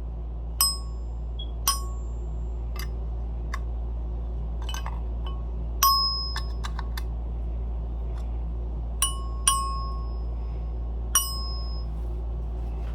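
Light metal taps and clinks on the Simplex 2902-9207 chime's rod as its mounting nut is tightened with a wrench. About a dozen irregular taps, several leaving a brief ringing ping, over a steady low hum.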